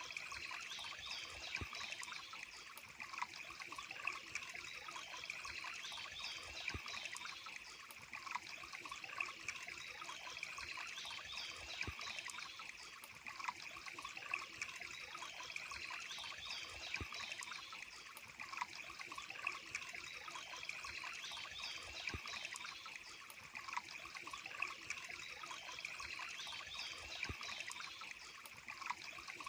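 Running water trickling steadily, with small sharp splashes scattered through it.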